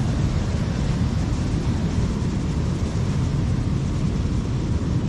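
Steady low rumbling noise with no distinct events in it.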